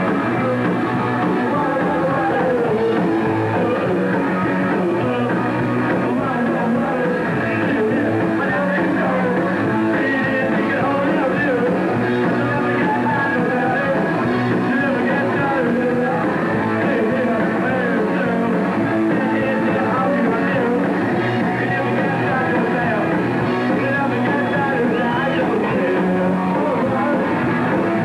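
Punk rock band playing live at a steady loud level: distorted electric guitar, bass and drums, with a singer singing into a microphone.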